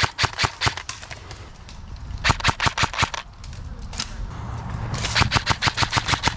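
Airsoft gun firing on full auto in three short bursts of rapid shots, about nine a second, each burst lasting about a second, with pauses between them.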